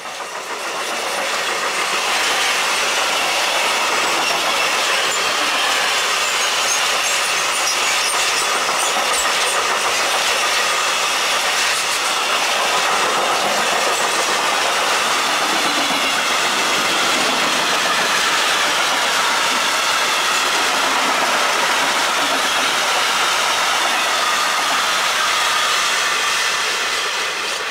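Freight train of covered sliding-wall wagons and coil wagons running past at line speed: a steady rumble and clatter of steel wheels on rail, with faint high wheel squeaks about a quarter of the way in. The sound fades in at the start and fades out at the end.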